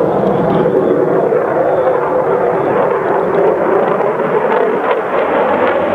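Steady, loud engine drone with no change in pitch.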